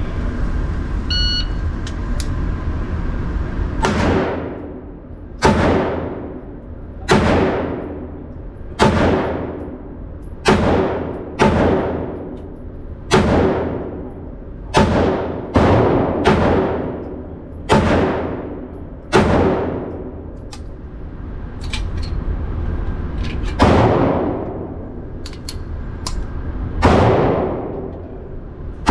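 A short electronic shot-timer beep, then a slow string of about fourteen pistol shots from an Atlas Gunworks 2011-style pistol, roughly one and a half seconds apart. Each shot has a long echoing tail from the indoor range, over a steady low hum.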